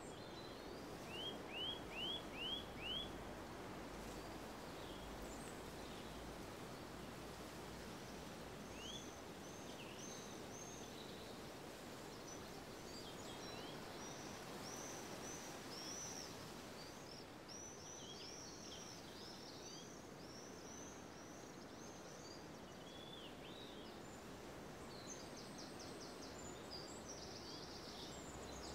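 Outdoor ambience: a steady low background hiss and rumble with birds singing. A run of five quick, loud call notes comes about a second in, followed by many high chirps and twitters and a fast trill near the end.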